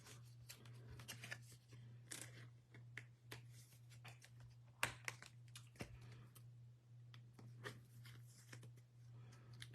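Faint handling of baseball trading cards and packs: scattered light clicks and rustles, with a steady low hum underneath.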